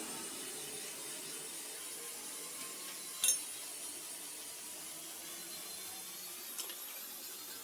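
Faint steady hiss broken by one sharp click about three seconds in, and two lighter ticks near the end.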